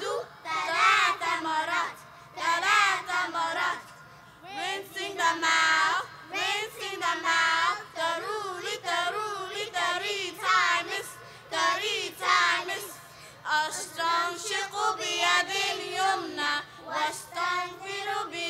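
Children singing together, a sung lesson on the steps of wudu (ablution), with short breaks between phrases.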